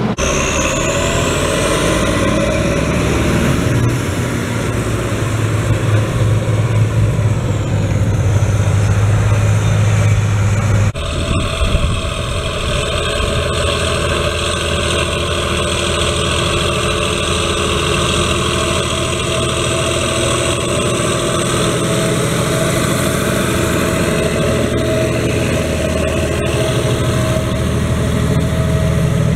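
Schlüter Profi Trac 3500 TVL's turbocharged 320 hp MAN diesel engine running, heard from the cab, its note stepping up about four seconds in, with a high whine that rises over the first couple of seconds and fades away. After an abrupt change near eleven seconds it runs steadily under load while the tractor pulls a disc harrow through the soil.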